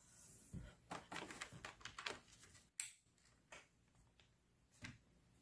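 Faint clicks and taps of an ethernet cable being handled and plugged into a laptop, with one sharp click, the loudest, a little past halfway.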